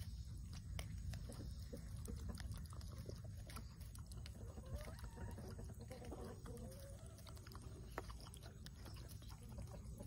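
White domestic turkeys pecking at kitchen scraps of corn cobs and eggshells: a scatter of short, sharp pecking clicks and taps, with a few soft calls from the birds near the middle.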